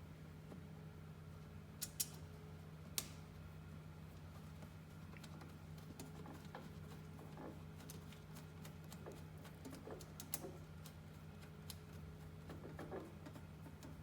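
Scattered small clicks and taps of metal parts and hand tools being handled, with two sharper clicks about two and three seconds in and another near ten seconds, over a steady low hum.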